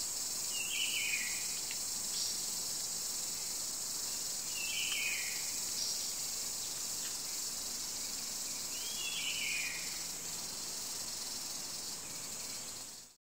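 Steady high-pitched chorus of insects, with a bird calling three times about four seconds apart, each call a short falling phrase. The sound cuts off abruptly near the end.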